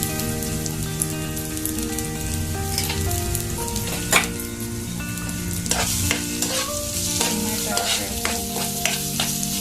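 Sliced onions, green chillies and tomato sizzling in hot oil in a pan while a spatula stirs them, knocking and scraping against the pan: one sharp knock about four seconds in, then quicker strokes through the second half.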